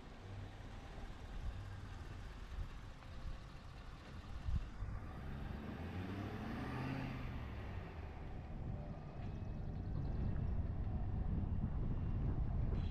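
Road traffic: a full-size pickup truck drives past, its engine note sweeping up and back down as it goes by, with a brief knock just before. Near the end a steady engine-and-road rumble grows louder as the car moves off.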